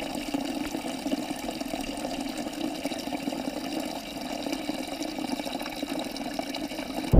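A small trickle of bog water falling into a pool in a narrow peat channel, splashing steadily.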